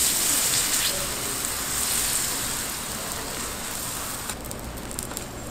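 Korean pancake (buchimgae) batter sizzling in hot oil on a flat round griddle, starting sharply as the batter is ladled on and slowly fading.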